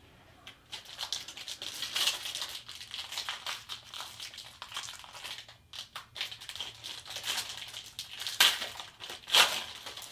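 Plastic wrapper of a trading-card pack crinkling and crackling as it is handled and torn open, with two louder crackles near the end.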